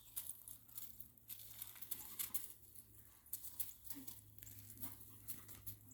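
Faint, irregular rustles and light ticks from a scent-detection dog working its search.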